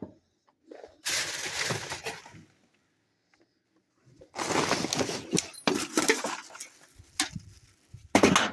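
Scrap and trash being handled in a dumpster: rustling and clattering with sharp clicks, in three bursts, as a box of aluminum wire and other debris is shifted and pulled up.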